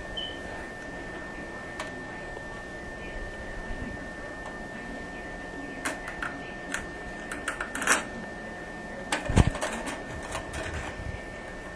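Toilet fill-valve parts being handled: scattered small clicks and taps, mostly in the second half, the loudest a dull knock about nine seconds in.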